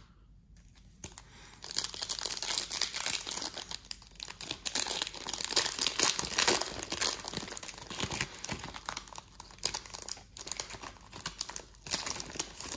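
Foil wrapper of an Upper Deck MVP hockey card pack being torn open and crinkled by hand: dense crackling starts about a second and a half in and goes on, with a brief lull near ten seconds.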